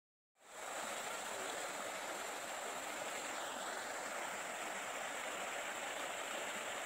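A steady, even rushing hiss that starts abruptly about half a second in, out of dead silence.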